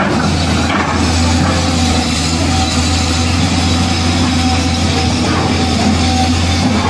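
Heavy engine idling steadily with an even low rumble, an added engine sound effect rather than anything the plastic toys could make.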